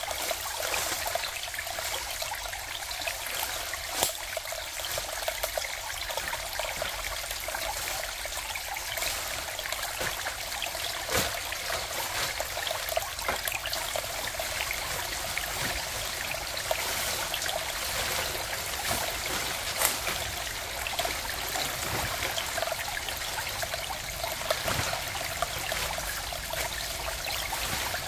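Steady trickling water, an even hiss with many scattered sharp drip-like ticks.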